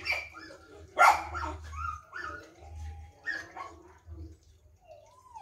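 Dogs giving a few short barks and yips, the loudest about a second in.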